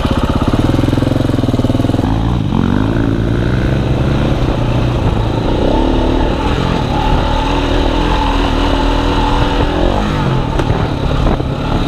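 KTM 690 Enduro R's single-cylinder engine running under way off-road. The revs climb about two seconds in, then hold fairly steady with a few small steps up and down as the bike rides along.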